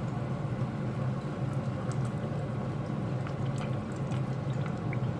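Pot of chicken tinola soup bubbling at a boil, with scattered small pops over a steady low hum.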